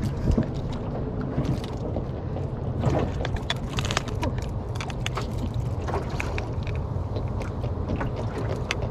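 Steady low rumble aboard a small fishing boat, with scattered clicks and knocks on top.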